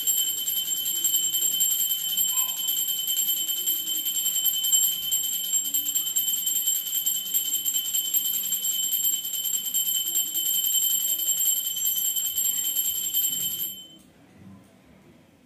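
Small brass puja hand bell (ghanti) rung rapidly and without a break, a bright high ringing that stops abruptly near the end.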